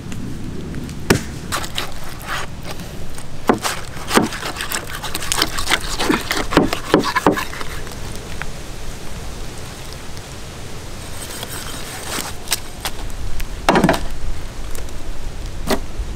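Large knife cutting and hacking through the flesh and cartilage of a big eagle ray: irregular sharp cuts and cracks in two bouts, with a quieter lull in the middle.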